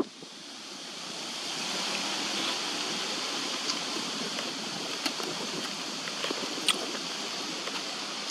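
A steady rushing hiss that swells over the first two seconds and then holds, with a few faint sharp clicks.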